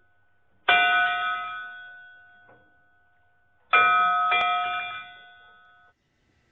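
Intro sting of two bell-like chime strikes about three seconds apart, each ringing out and fading; the second is cut off short.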